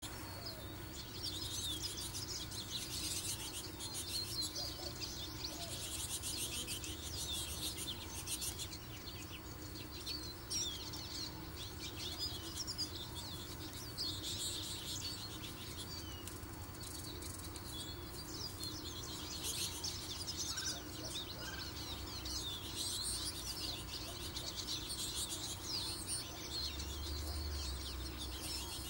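Small birds chirping and twittering in repeated bursts of rapid high notes, with a few short lower call notes and a faint steady hum underneath.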